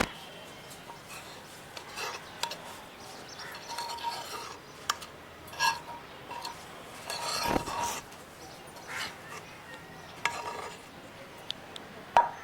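Kitchen utensil clinking and scraping against a cooking pot of stew, in scattered short knocks and scrapes.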